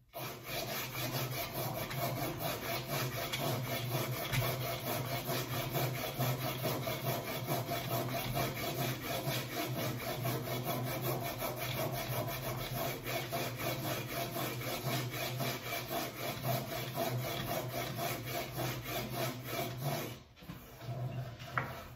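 Sanding block with coarse 40-grit paper scraping rapidly back and forth along a snooker cushion's rubber nose, taking out knife marks to shape its curve. The strokes stop about twenty seconds in.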